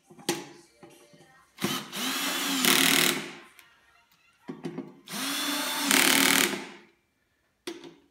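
Cordless drill fitted with a cut-off Allen key bit, driving hex screws into a chair's metal swivel plate. It runs twice for a couple of seconds each, the motor pitch rising and then falling in each run, with a short blip near the end.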